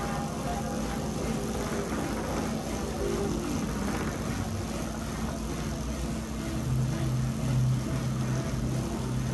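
Bicycle tyres spinning on Tacx rollers: a steady whirring hum. A low pulsing tone joins in about two-thirds of the way through.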